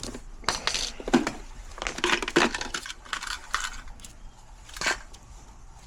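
Hands at work on the equipment: a string of irregular scrapes, crinkles and clicks, with a sharper scrape about five seconds in.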